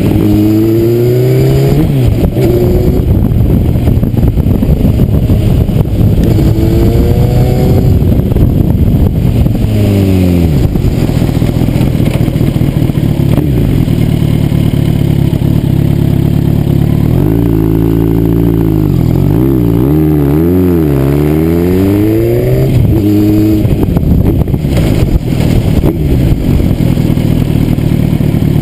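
Kawasaki ZX-10R's inline-four engine under hard riding, its revs climbing and dropping again and again through the gears. Past the middle comes a run of quick rises and falls in pitch as the throttle is rolled off and back on.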